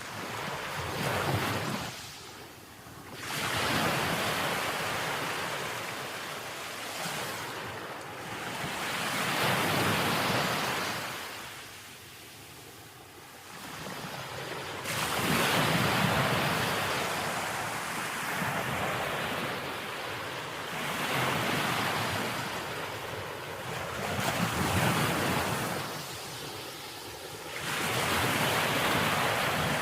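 Ocean waves breaking on a beach, the surf swelling and falling back every few seconds, with wind buffeting the microphone.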